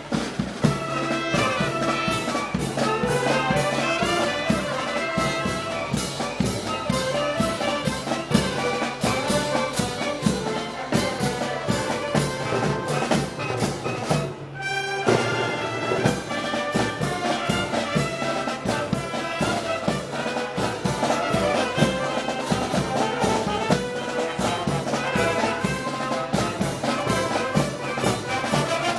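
Brass band playing festival march music over a steady drum beat. The music briefly drops out about halfway through.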